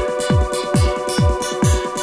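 Electronic dance music: a steady kick drum about two beats a second under a held synth chord, with hi-hat strokes between the beats.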